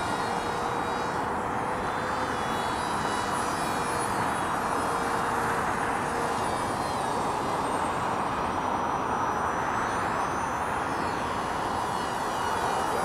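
Scratch-built RC parkjet model of a Boeing AGM-86A cruise missile in flight, its pusher propeller and motor buzzing steadily, with a higher whine that rises and then falls in pitch about two-thirds of the way through as it passes.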